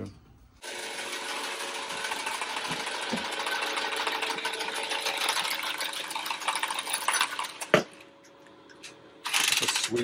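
Cordless copper tubing cutter whirring as its head spins around a copper pipe, for about seven seconds, ending in a sharp click. A second short whir follows near the end.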